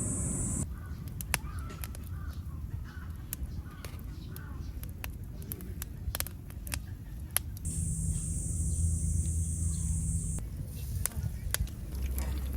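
Crows cawing, over a steady low rumble, with scattered sharp clicks. A high steady buzz starts about 8 seconds in and cuts off abruptly two and a half seconds later.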